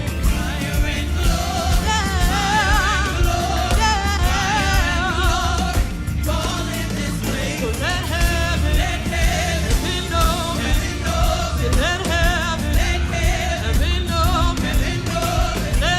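Gospel worship music: several singers holding long, wavering notes over a band with drums and bass.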